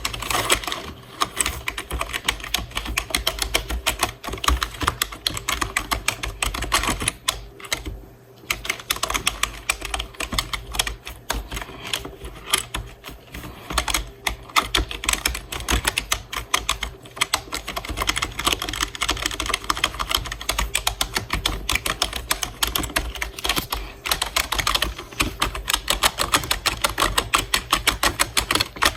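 Rapid keyboard typing: a dense run of keystroke clicks, with a brief pause about seven to eight seconds in.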